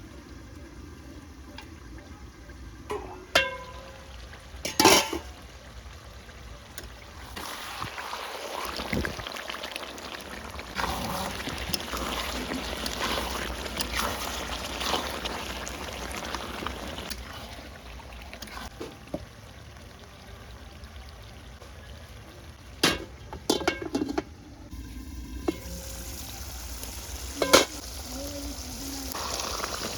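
Cooking sounds from a pan of chicken curry: sharp knocks of a utensil against the pan a few times, and a long stretch of liquid hissing and bubbling in the hot pan through the middle.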